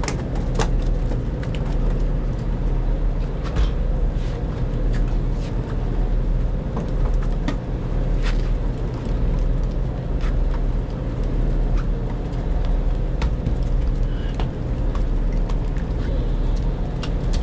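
A fishing boat's engine running with a steady low drone, with scattered short clicks and knocks over it.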